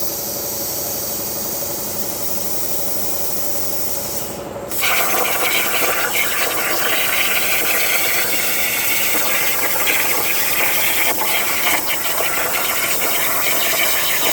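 CNC plasma cutter hissing steadily. About four and a half seconds in, after a brief drop, it turns louder and harsher, with a fine crackle, and holds that level.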